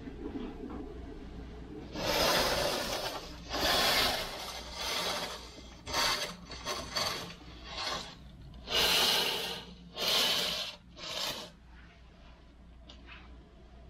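About nine short rubbing sounds in an irregular run, each under a second, over a faint steady low hum.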